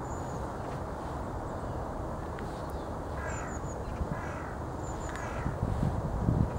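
A crow cawing three times, about a second apart, with a few faint high bird chirps over a steady outdoor rumble. Wind starts buffeting the microphone near the end.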